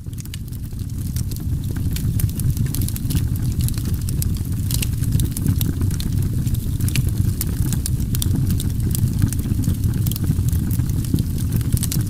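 Steady low rumble with frequent scattered crackles and pops, fading in at the start and then holding level.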